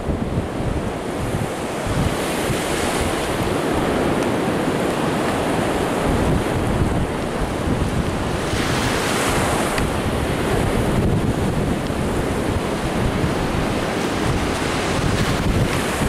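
Ocean surf breaking and washing up a sandy beach, a steady rush with one wave surging louder about nine seconds in. Wind buffets the microphone with a low rumble.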